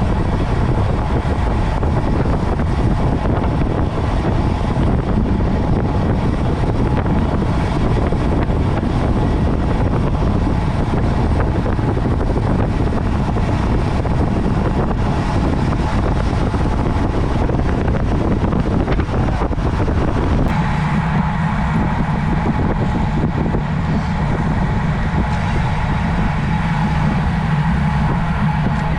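Steady rush of wind and road noise on a camera carried on a road bike while riding. About two-thirds of the way through, the sound thins in the middle and a lower hum takes over.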